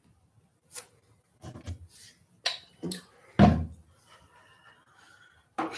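Handling noise at a desk close to the microphone: a few clicks and knocks, with a heavy thump about three and a half seconds in.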